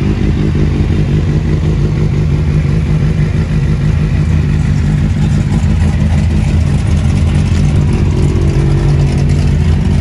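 Kawasaki Z-series naked motorcycle's engine idling steadily.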